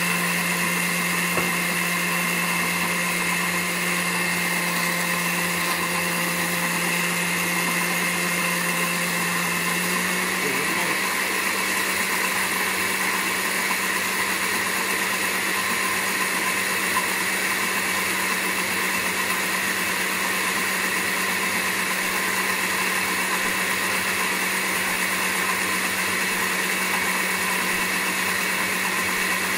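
Countertop blender motor running steadily while emulsifying Caesar dressing as olive oil is drizzled in through the lid. Its hum steps slightly higher about ten seconds in.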